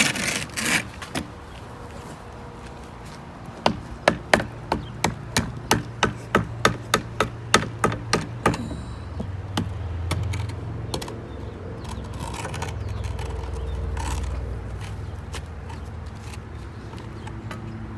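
A quick run of sharp knocks or whacks, about three a second for some five seconds, followed by a low rumble.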